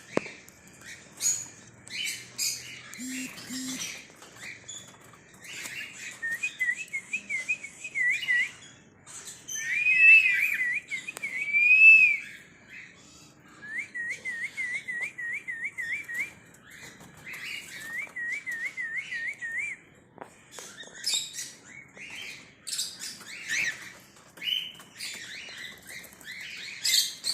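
Cockatiels chirping, with several runs of quick, wavering whistled notes through the middle, the loudest phrases about ten to twelve seconds in. Short sharp chirps come before and after the whistled runs.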